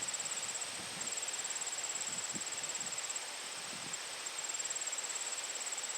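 Insects trilling steadily in a high, fast-pulsing chorus, with short pauses about a second in and just after four seconds.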